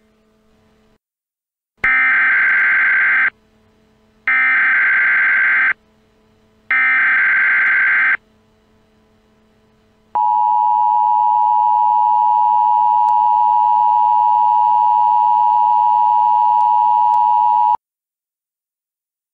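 Emergency Alert System tones: three short bursts of SAME digital header data, a buzzy screech repeated about a second apart. Then comes the EAS attention signal, a steady two-tone sound at 853 and 960 Hz held for about seven and a half seconds before cutting off.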